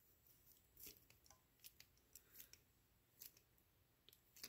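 Near silence with about four faint, sharp clicks spaced roughly a second apart, from a Mastercool hydraulic flaring tool's pump handle being worked to press the first stage of a flare into stainless brake line.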